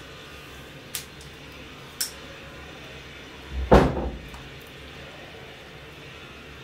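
Light clicks about a second apart as eggshell halves are handled while an egg is separated by hand, then one louder, dull knock a little past halfway, over a low steady hum.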